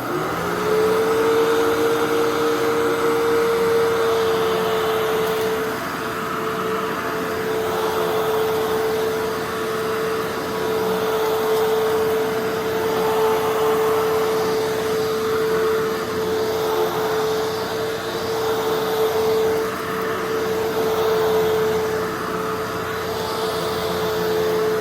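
Fantom Fury Special Edition vacuum cleaner switched on, its motor spinning up to a steady whine, then running with a rush of air as it vacuums, the loudness swelling and dipping as it is worked. The motor has just been rebuilt, with the fan blown out and the bearings greased; the bearings still don't sound perfect.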